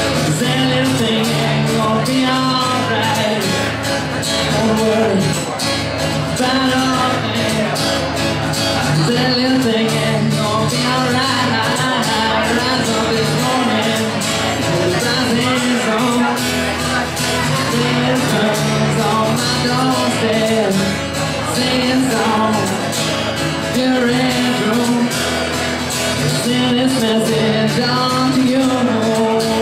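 Band music with singing over a steady, regular beat.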